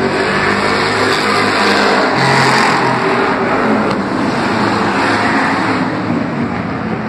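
Street stock race cars' engines running hard as a pack laps the oval, a steady dense engine noise that swells a little as the cars pass about two seconds in.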